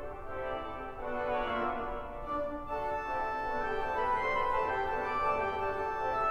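Great Malvern Priory's pipe organ playing sustained chords. About two and a half seconds in, the sound grows brighter and fuller as higher notes join.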